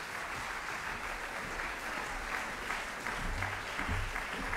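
Audience applauding steadily in a theatre hall.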